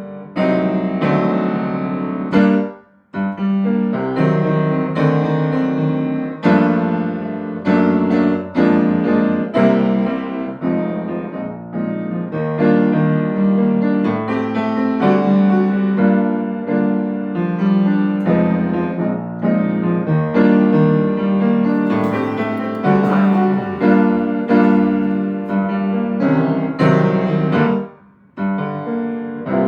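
Piano being played: a run of struck notes and chords, each left to ring and fade, with brief pauses about three seconds in and again near the end.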